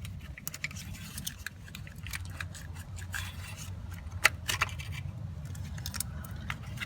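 Scattered clicks and scrapes of a plastic wiring connector being unlatched and worked off a transmission neutral safety switch, with one sharper click about four seconds in.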